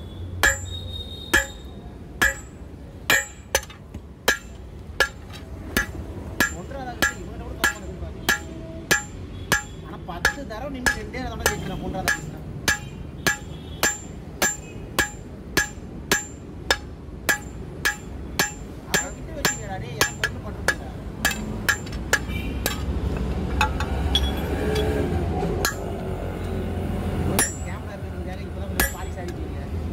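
A hand hammer beats red-hot 20 mm steel rebar on a steel anvil at a steady pace, about two blows a second, each a sharp strike with a short metallic ring. After about 22 seconds the blows thin out to a few spaced strikes.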